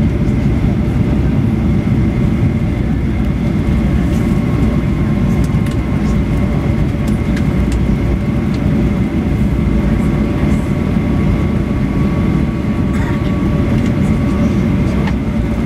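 Cabin noise of a Boeing 737-800 rolling on the ground: a steady loud rumble with a faint steady whine over it, and light clicks and rattles here and there.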